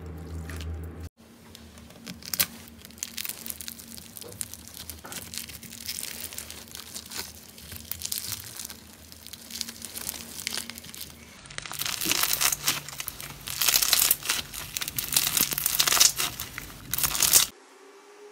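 Beaded slime being stretched and squeezed by hand, giving a dense stream of crackling and crinkling pops that grows much louder in the second half and cuts off suddenly near the end.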